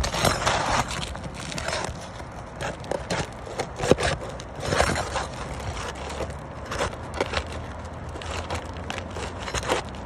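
Irregular scraping, clicking and knocking of objects being handled, with a sharp knock about four seconds in, over a low steady hum.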